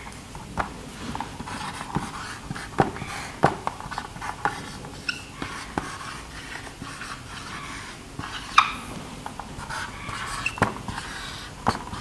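Dry-erase marker squeaking and scratching on a whiteboard as words are written out, in short irregular strokes.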